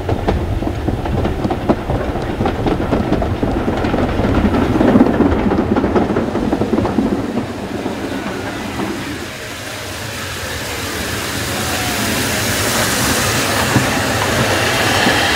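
Steam train running, its wheels clacking over the rail joints with a heavy rumble, then a steam locomotive drawing in past a platform, the noise swelling as it comes close.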